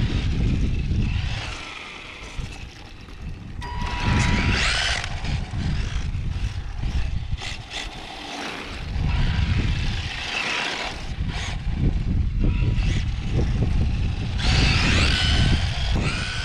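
Electric motor and gears of a Tamiya M-05L radio-controlled car whining as it drives on asphalt, the pitch rising and falling in several surges as it speeds up and slows, over a low rumble.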